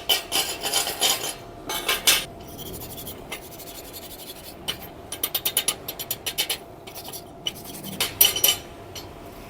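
Metal scraping and clinking in quick strokes against a fresh weld bead on thick steel bar, in three short bouts, as the weld is cleaned off for inspection.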